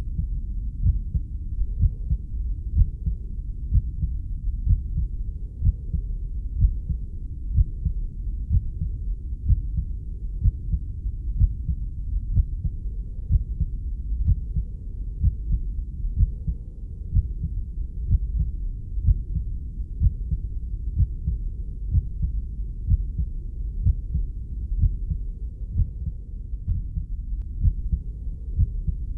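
Deep, muffled heartbeat beating steadily about once a second over a constant low whoosh, as a heartbeat sounds from inside the womb.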